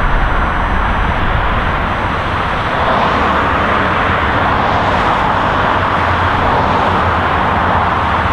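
Steady highway traffic: a continuous rush of tyre noise and engine rumble from cars passing in a stream, swelling slightly in the middle as a vehicle goes by.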